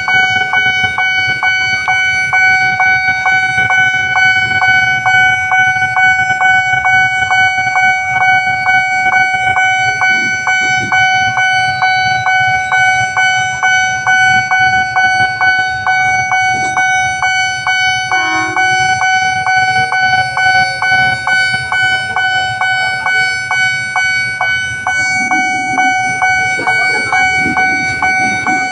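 Railway level-crossing warning alarm sounding continuously: a loud electronic tone pulsing rapidly and evenly, over the low rumble of waiting traffic.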